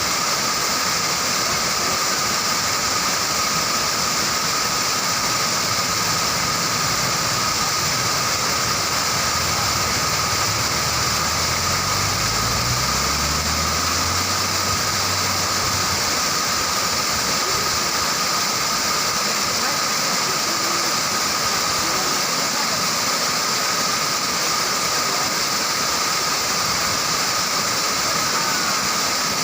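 Waterfall: a steady, unbroken rush of falling water. A faint low drone comes in about six seconds in, rises briefly in pitch around the middle and fades out soon after.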